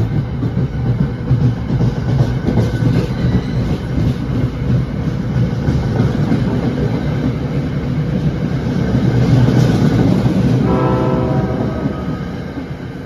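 NJ Transit Comet passenger coaches rolling past as the train pulls out of the station: a steady rumble with wheel clatter on the rails, loudest a little before the end and then easing off. A short horn-like tone sounds about eleven seconds in.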